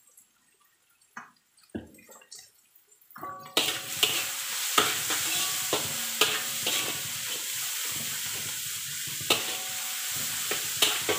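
Sliced onions sizzling in a large metal wok: quiet with a few faint clicks at first, then a loud, steady sizzle starts suddenly about three and a half seconds in. A metal spatula knocks and scrapes against the wok now and then.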